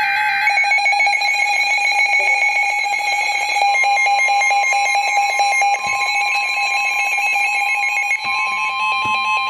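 Emergency Alert System alert tones: loud, steady electronic alarm tones with a rapid flutter, joined by a second, slightly higher tone about four seconds in. They signal a severe thunderstorm warning.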